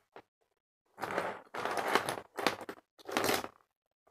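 Four bursts of rustling, crackling handling noise, as small plastic toys are picked up and moved about and the recording phone is shifted.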